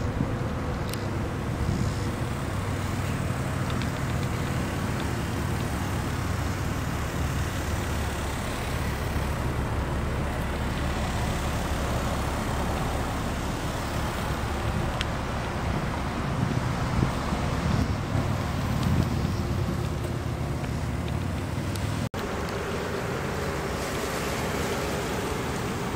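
Steady low rumble of motor vehicles, with wind buffeting the microphone.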